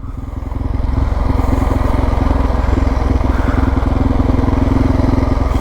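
Suzuki DR650's single-cylinder four-stroke engine running as the motorcycle is ridden, dipping at first and picking back up over about a second, then holding steady.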